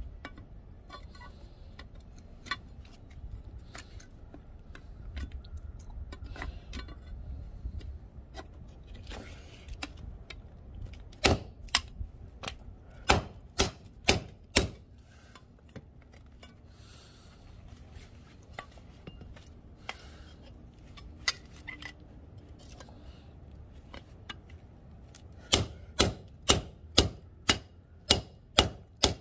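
Slotted steel angle bracket striking and prying at a small power transformer's steel frame, to break it open for its copper windings. Light knocks and scraping, then two runs of sharp, ringing metal-on-metal strikes, several blows each: one around the middle and one near the end.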